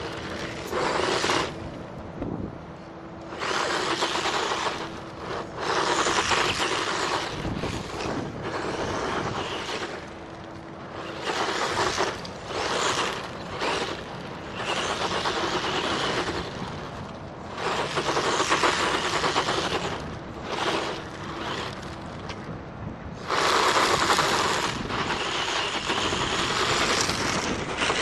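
Tamiya Hornet radio-controlled buggy's electric motor and gearbox whirring in repeated bursts of throttle, each a second to several seconds long, as it drives over sandy gravel.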